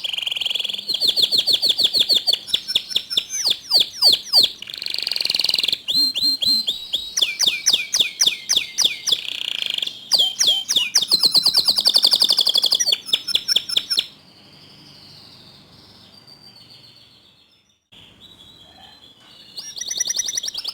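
Domestic canary singing in full song: loud, fast trills and rolls with some swooping notes. About two-thirds of the way in it breaks into softer, quieter warbling, then returns to loud trilling near the end.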